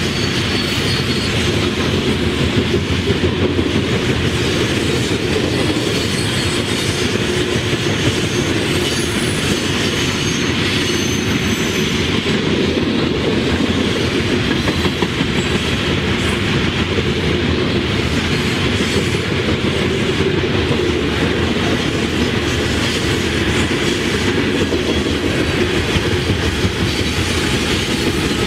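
Freight train of coal gondola cars rolling past on a curve, with steady wheel and rail clatter, and faint, high wheel squeal now and then.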